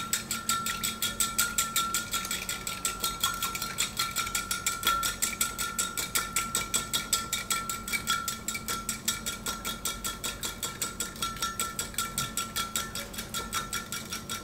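Wire whisk beating fast against the sides of a glass measuring cup, an even clinking of about six or seven strokes a second, as olive oil is whisked into lemon juice to make a salad dressing.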